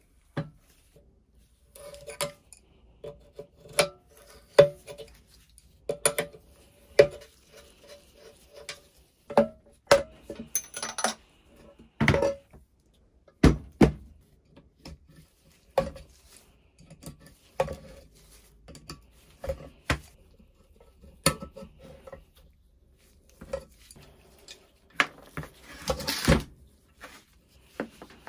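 Irregular metallic clinks and knocks, some ringing briefly, from an adjustable wrench and the loosened parts of a rusty hand-cranked grinder being taken apart and set down on a workbench. A longer scraping noise comes near the end.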